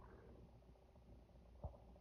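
Near silence: quiet room tone with a faint low hum and one brief soft bump near the end.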